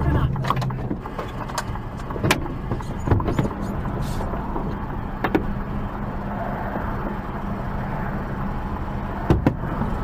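Truck cab interior: the engine runs with a steady low hum as the truck rolls to a stop, with scattered sharp clicks and knocks and a louder double knock about nine seconds in.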